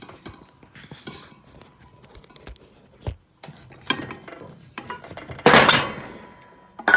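Knocks and metallic clatter as a motorcycle front wheel is worked out of the forks by hand, with the loudest clatter about five and a half seconds in and another sharp knock near the end.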